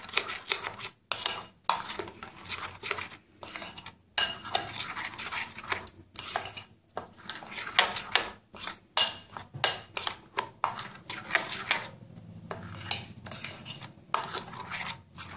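A spoon stirring a thick spiced yogurt mixture in a glass bowl, scraping and clinking irregularly against the glass.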